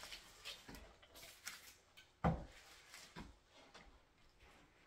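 Steam iron knocking on a glass tabletop as it is pressed and moved over a canvas: one sharp knock about two seconds in, with softer bumps and clicks between.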